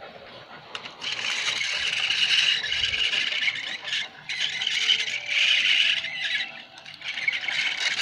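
Tomy Thomas toy train running, its wheels and motor giving a high squealing, scraping rattle. It starts about a second in and comes in three long surges.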